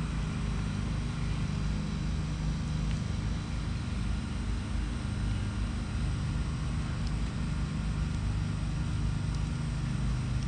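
A steady low machine hum, holding the same few low pitches without a break.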